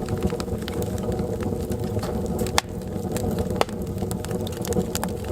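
Wood stove fire burning hard: a steady rumbling draft with frequent sharp crackles and pops of burning wood, two louder pops around the middle.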